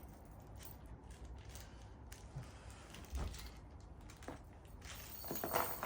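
Faint handling noises of small heater-kit parts: scattered light clicks and knocks, with a louder rustle near the end.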